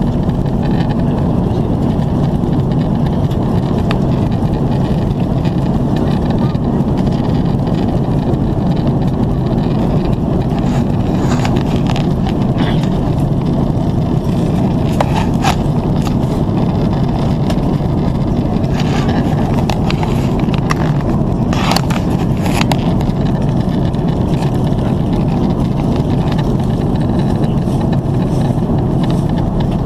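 Steady low drone of an Airbus A330-300 with GE CF6 engines at high-altitude cruise, heard inside the passenger cabin as a blend of engine hum and airflow over the fuselage. A few faint brief clicks or rustles come between about 11 and 23 seconds in.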